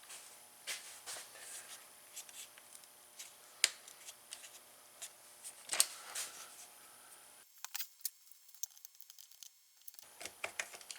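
Hand tools and small metal parts being handled: scattered light clicks and taps, with a couple of sharper clicks about a third of the way in and about halfway.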